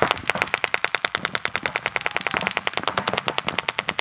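Paintball markers firing in rapid, evenly spaced strings of shots, about a dozen a second.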